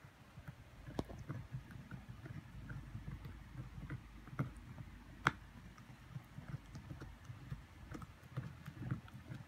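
A corgi puppy and a miniature dachshund puppy gnawing on a chew bone together: irregular clicking and crunching of teeth on the chew, with a few sharper clicks, the loudest about five seconds in.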